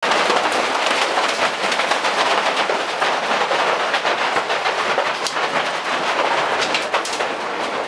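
Large hailstones pelting a wooden cabin, heard from inside: a loud, continuous clatter of countless hits, with sharper single cracks standing out here and there.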